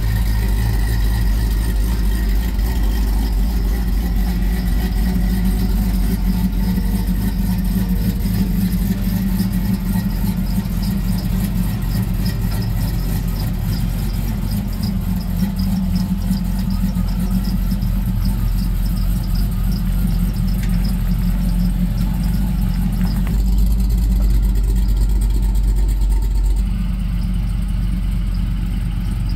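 LS-swapped 1972 Chevrolet Monte Carlo with a 2005 LS V8, running steadily at idle and low speed as the car is driven slowly and eased up onto a trailer.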